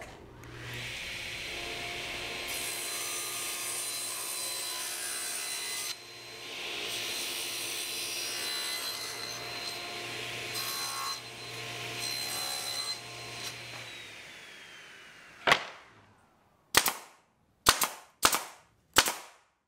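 Table saw running and ripping a thin strip of plywood, its blade noise louder during the cuts, then spinning down. Then a nail gun fires five sharp shots over the last few seconds, driving nails into plywood.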